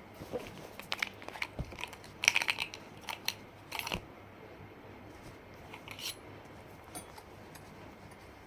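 A phone's retail box and packaging being handled: scattered clicks and short crinkling rustles, busiest in the first four seconds, then only a few light taps.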